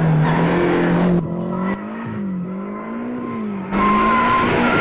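Turbocharged Nissan FJ20 four-cylinder in a Holden Gemini being driven hard around a circuit, its engine note rising and falling through the corners. The tyres squeal briefly just under four seconds in as the car runs into understeer.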